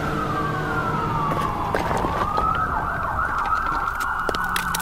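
Emergency sirens wailing, several overlapping and wavering against one another. One tone slides down over the first two seconds before the others rise in and hold, over a low rumble with scattered short clicks.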